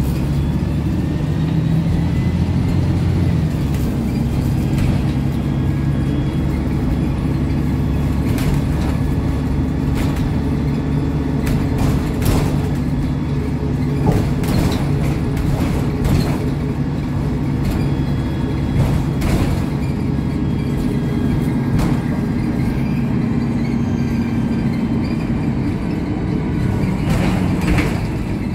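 Inside the cabin of an Alexander ALX300-bodied MAN 18.220 single-deck bus: the diesel engine runs steadily under way, with a low drone that shifts a few seconds in. Interior fittings rattle and knock now and then over bumps.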